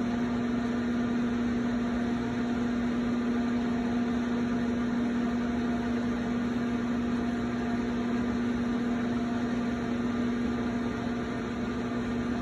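Electric potter's wheel running at a steady speed: a constant motor hum with one strong low tone over a faint hiss.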